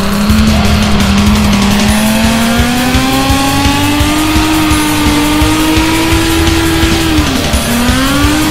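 Drift car's engine held high in the revs with tyres squealing, its pitch climbing slowly; about seven seconds in it drops briefly and picks up again.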